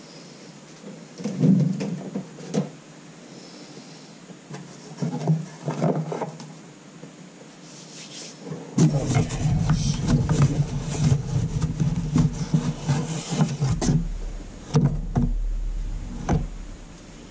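Cards and a cardboard box being handled and sorted: short spells of rustling and knocking in the first six seconds, then a denser run with a low rumble from about nine seconds in, stopping near the end.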